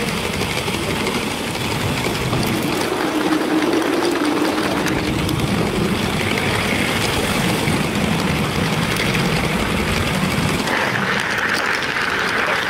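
Lego model train's electric motor whirring steadily as the train runs along plastic track, heard close up from on board.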